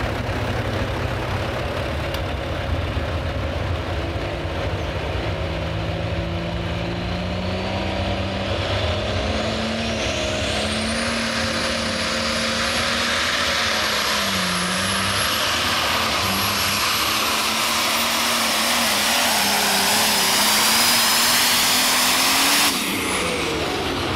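A modified pulling tractor's engine running under heavy load as it drags a weight-transfer sled down the dirt track. Its note climbs over the first several seconds while a high whine rises alongside it and then holds. The sound cuts off suddenly about 23 seconds in as the pull ends, leaving falling tones as the engine winds down.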